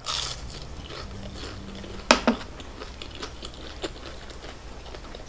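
A person chewing and biting food close to the microphone, with two sharp, crunchy bites a little after two seconds in and fainter mouth clicks later.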